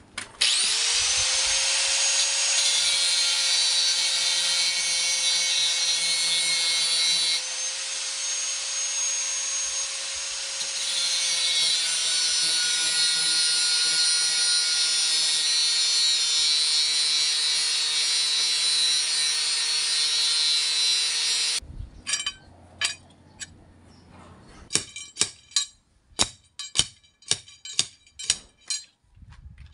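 Handheld angle grinder spinning up with a rising whine, then cutting metal steadily for about twenty seconds, the load easing and deepening slightly partway through, before shutting off abruptly. Near the end comes a quick run of sharp knocks.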